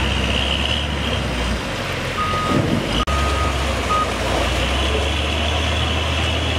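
Diesel engine of a Doosan wheel loader running steadily, with a reversing alarm beeping three times in the middle. The sound drops out briefly just after the second beep.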